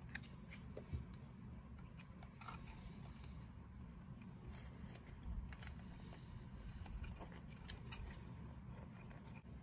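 Faint crinkling and rustling of folded patterned paper being handled and pinched into an accordion-pleated rosette, with scattered small crisp clicks.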